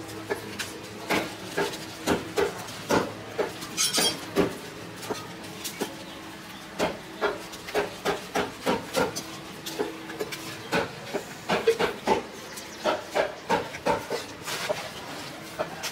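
Butcher's cleaver chopping beef on a round wooden log chopping block: a run of sharp knocks as the blade goes through the meat into the wood, about one or two a second, with a short pause around the middle.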